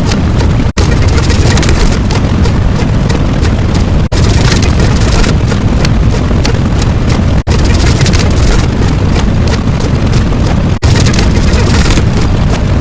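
A loud, noisy sound effect, heavy in the low end, that cuts out for an instant and starts again about every three seconds.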